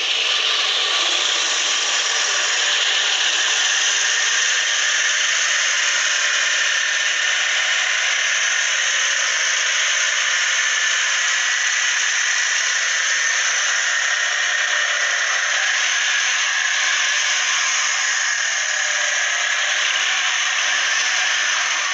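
Make-believe engine sound built into a miniature 1959 Jeep Willys, running as a steady, thin, hissing whir with no deep rumble and no break.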